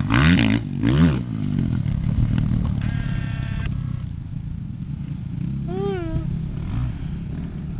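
Motocross dirt bikes running on a dirt track, with engine pitch rising as they rev in the first second, a steadier drone of bikes out on the circuit, and a short rise and fall of revs about six seconds in.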